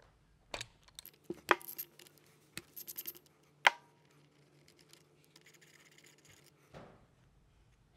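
Sharp metal clicks and clinks of a socket wrench undoing the retaining bolts on a pit bike engine's drive sprocket, with a quick run of clicks a little after two and a half seconds in and the loudest click about a second later.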